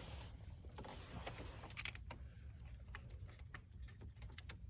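Faint, scattered clicks and light metallic knocks as the small coil-pack bolts and hand tools are handled, over a low steady hum.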